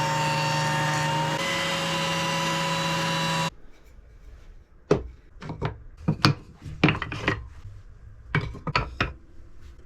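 Woodworking jointer running steadily with a constant whine, stopping abruptly about three and a half seconds in. After that, wooden boards knock and clatter as they are handled and set down.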